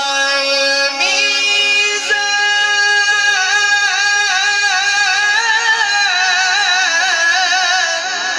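A qari's voice reciting the Quran in the melodic tajwid style, drawing out one long high phrase. The pitch steps up about a second in, then wavers through ornamented turns.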